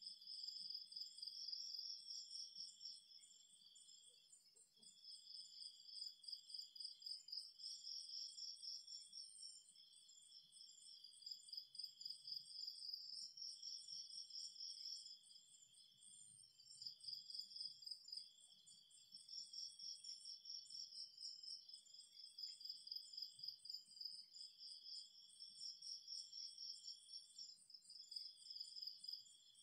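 Faint chorus of night insects such as crickets, several high-pitched pulsed songs overlapping, coming in bursts of a few seconds with short breaks between them.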